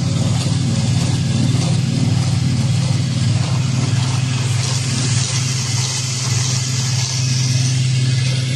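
Industrial bra hook-and-eye tape sewing machine running steadily, with a constant low hum made of rapid mechanical pulsing. A higher hiss joins in for a few seconds in the second half.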